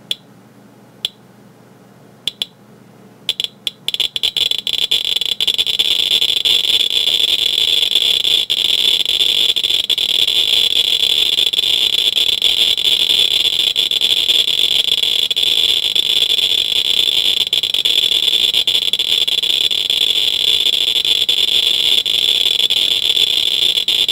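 Inspector EXP Geiger counter with a pancake probe, clicking on each detected count: a few scattered background clicks, then about three to four seconds in the clicks crowd together into a fast, dense crackle. The crackle is thousands of counts per minute from the radium paint on an old alarm clock's luminous dial.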